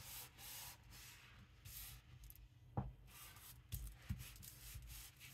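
Faint rustling of paper being handled, with a few soft knocks, the clearest about three seconds in and two more near four seconds.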